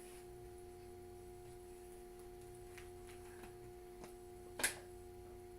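Quiet room tone with a steady electrical hum, broken once near the end by a single short, sharp click.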